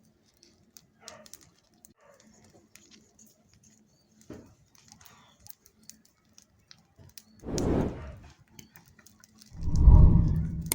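Bonfire of dry garden waste burning down, with faint scattered crackles. Two loud, muffled rushes come about two-thirds of the way in and again near the end.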